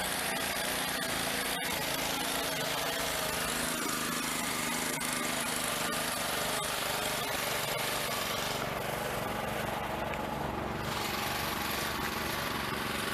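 Pressure washer running steadily, a motor hum under a hissing spray; the spray hiss thins for about two seconds two-thirds of the way through.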